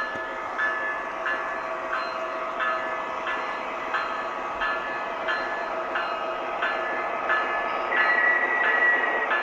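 Model train running on its track: a steady motor hum with a regular click about every two-thirds of a second as the train rolls. A high, steady squeal sounds for the last second or so.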